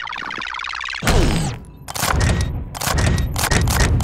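Cartoon sound effects: a warbling electronic sci-fi tone, cut off about a second in by a sudden loud crash, then a rapid run of bangs and clicks.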